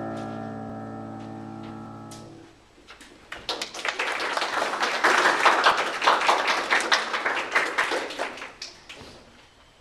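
A grand piano's final chord rings and dies away, then is cut off about two seconds in. About a second later audience applause starts and fades out near the end.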